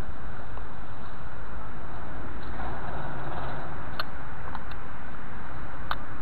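Steady outdoor rumble and hiss, with a few light clicks about two thirds of the way in and again near the end.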